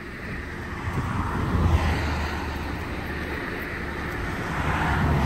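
Outdoor road noise: a low traffic rumble that swells about a second in and eases off again, with wind on the microphone.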